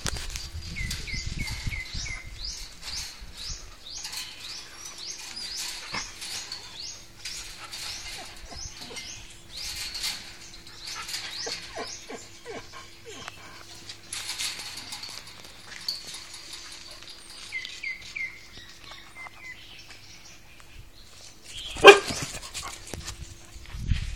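A dog barks, with one loud bark near the end, while birds chirp in short quick runs in the background.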